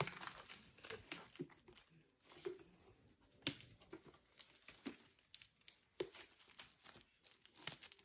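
Clear plastic shrink wrap being torn and peeled off a cardboard trading-card box, crinkling with many faint, irregular crackles.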